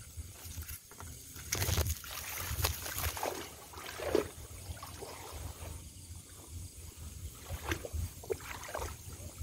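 Water sloshing and splashing as someone wades through floodwater, in short irregular bursts, with a low rumble underneath.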